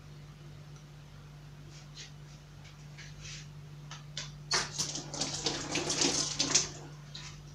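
Handling noises: a few light ticks, then about two seconds of dense, crackly rustling a little past halfway. A low steady hum runs underneath.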